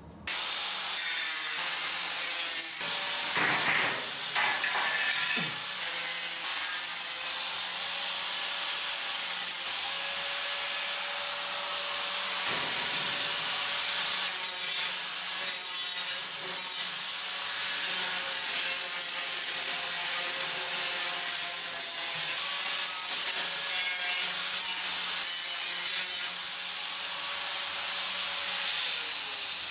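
Angle grinder cutting a thin sheet-steel shelf panel: a continuous, loud hiss of the disc on the metal over the motor's steady whine, with a few brief dips.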